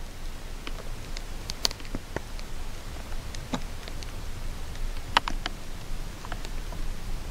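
Scattered sharp clicks and ticks at irregular intervals over a steady low rumble, two of them louder, about one and a half seconds and five seconds in. The uploader takes these for the sounds of tunnel-digging work underground.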